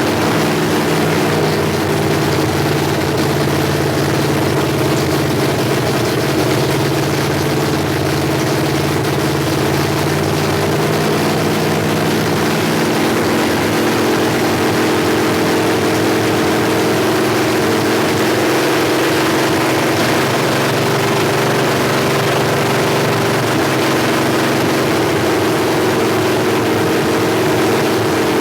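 Ford FE big-block V8 running loud on open headers with no exhaust, held above idle and eased gradually between about 2,000 and 3,000 rpm to break in a new flat-tappet camshaft. The pitch drifts slowly rather than holding steady.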